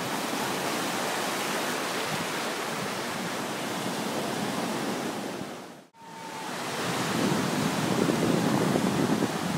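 Surf washing onto a beach, a steady rushing noise, with wind buffeting the microphone. The sound cuts out for an instant about six seconds in, and the wind rumble on the microphone is stronger after it.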